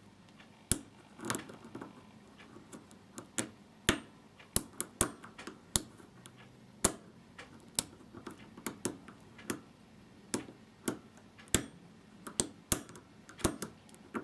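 Lock pick working the pins inside a five-pin WMS euro cylinder door lock: sharp, irregular metal clicks and taps, about two a second.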